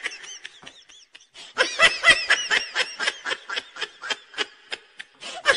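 A dubbed laughter sound effect: a high-pitched laugh in short, evenly repeated bursts, about five a second, faint at first and louder from about a second and a half in.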